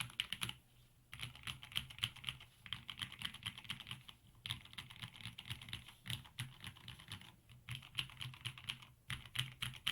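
Typing on an Epomaker EP84 mechanical keyboard with lubed Gateron Yellow linear switches and XDA keycaps, foam- and tape-modded: quick runs of keystrokes with short pauses in between.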